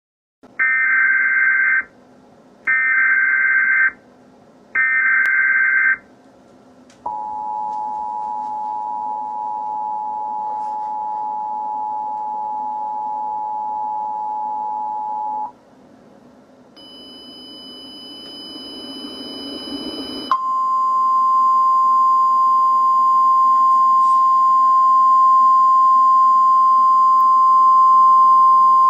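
US Emergency Alert System tones announcing a tornado warning. First come three short bursts of SAME header data tones. Then the two-tone attention signal holds for about eight seconds, a hiss with high whines rises for a few seconds, and a steady single-pitch NOAA Weather Radio warning tone starts about twenty seconds in.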